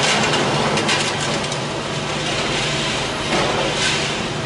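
Liebherr tracked excavator's diesel engine running under load as its demolition grapple tears into a workshop building, with crunching and clattering of sheet metal and rubble, busiest in the first second and a half and again a little after three seconds.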